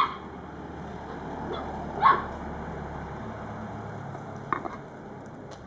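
Dog barking: three short, sharp barks about two seconds apart.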